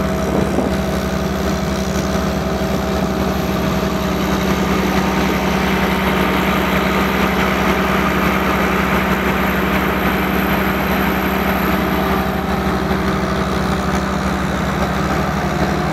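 Biogas-fuelled engine of a generator set running steadily at constant speed, a continuous even hum.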